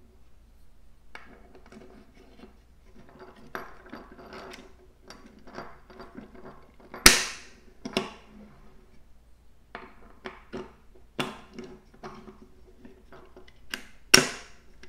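Plastic pitch blocks being pushed into the slots of an Ultra Prop propeller hub and the hub being handled: a series of clicks and knocks. The sharpest clacks come about seven seconds in and again near the end.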